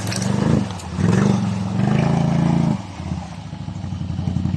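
Off-road 4x4 vehicle's engine revving in two surges, a short one at the start and a longer one of nearly two seconds, then dropping back to a quieter, evenly pulsing run for the last couple of seconds.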